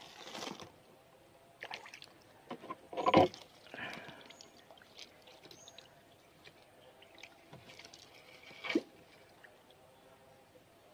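A few short water splashes and drips, the loudest about three seconds in, with a sharp knock near the end.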